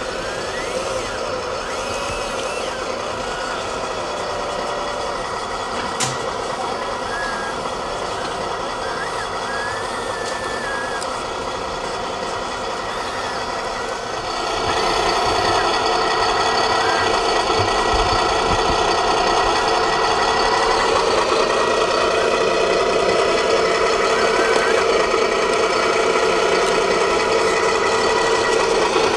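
Radio-controlled hydraulic excavator working sand: a steady machine whine and engine-sound hum, with a sharp click about six seconds in. It grows louder about halfway, and a whine rises and falls as the arm works.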